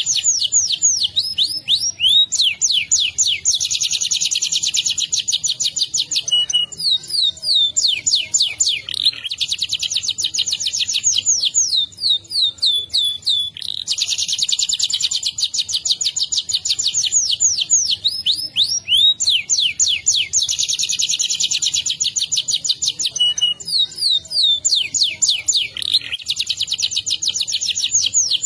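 Domestic canary singing a long, unbroken rolling song. Very fast trills are held for one to two seconds at a time, alternating with runs of quick sliding notes.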